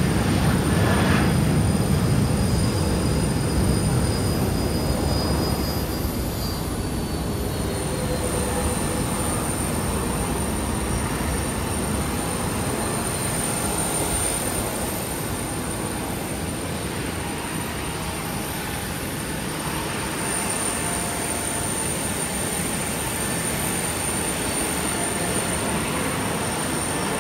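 Steady jet aircraft noise on an airport apron: a loud, even rumble with a thin, steady high whine over it, the rumble heaviest in the first few seconds.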